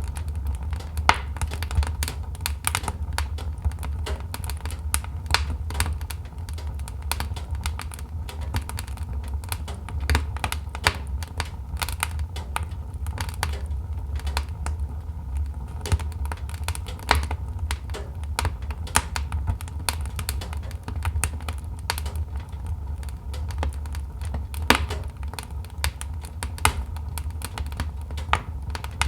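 Wood fire burning in a fireplace: logs crackling and popping with many sharp irregular snaps over a steady low rumble of the flames.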